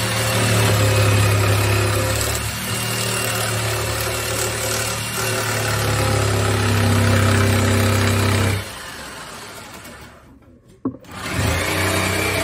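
Electric jigsaw cutting through the kitchen countertop to enlarge the sink cutout for a bigger new sink, running with a steady pitched hum. It stops about two-thirds of the way through, a click follows, and it starts cutting again near the end.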